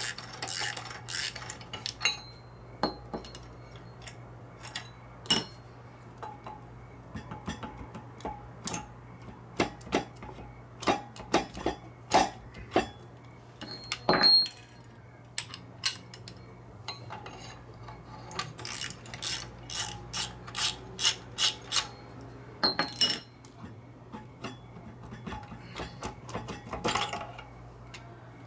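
Hand socket ratchet clicking and steel tools and parts clanking in irregular bursts, with one loud clank about halfway and a quick run of ratchet clicks a little later, during reassembly of a Dana 44 front axle's spindle and steering knuckle.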